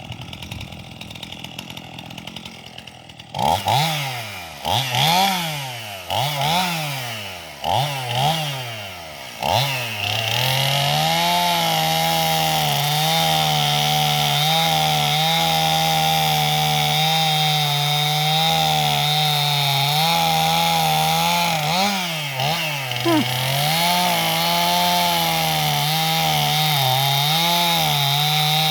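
Gas chainsaw idling briefly, then revved up and down several times in quick succession. From about ten seconds in it is held steadily at high speed, dipping briefly a few times later on.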